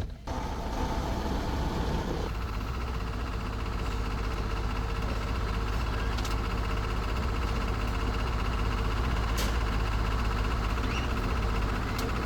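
Car engine starting up and settling into a steady idle about two seconds in.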